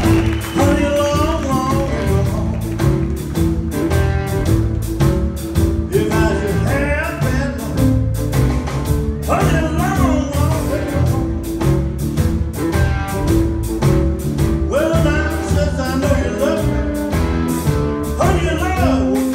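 Live blues band playing with a steady drum beat and bass, a lead line bending and wavering in pitch above the band.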